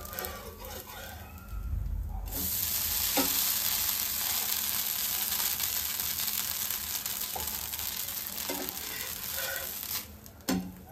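Dosa sizzling on a hot tawa: a steady hiss that comes in abruptly about two seconds in and drops away near the end. A few light knocks and scrapes of a metal spatula against the pan, the sharpest near the end.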